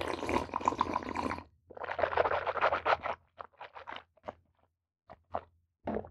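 A person drinking water from a glass and working it around the mouth to taste it, in two spans of wet, scratchy slurping and swishing over the first three seconds. A few short clicks and smacks follow.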